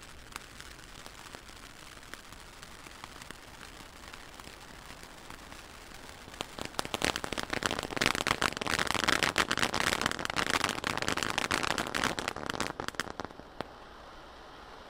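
Giant volcano fountain firework hissing steadily as it sprays sparks. About six seconds in, its crackle effect starts: a loud, dense crackling that lasts about seven seconds and then drops back to the hiss.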